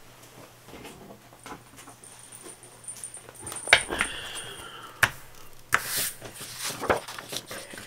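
Paper pages and a disc-bound planner being handled: rustling with several sharp clicks as the pages are pressed back onto the planner's plastic discs. A brief high whine sounds about four seconds in.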